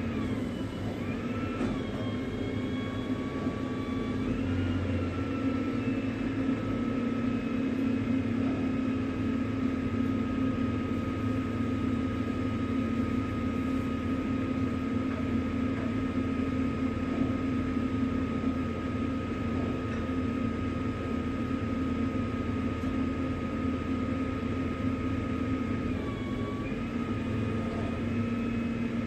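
Tow truck running steadily with a low hum and a whine above it that bends in pitch briefly a few times.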